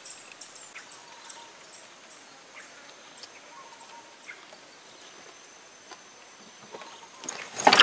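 Quiet riverside ambience: faint bird chirps and a thin, steady, high insect whine from about halfway, with a few soft clicks. A sudden louder noise comes at the very end.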